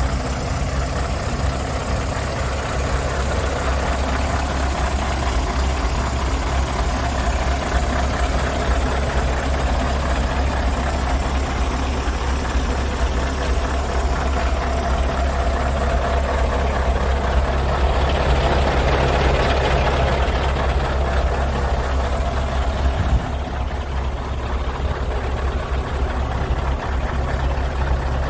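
Scania R144 460 truck's 14-litre V8 diesel engine idling steadily, getting a little louder for a few seconds about two-thirds of the way through.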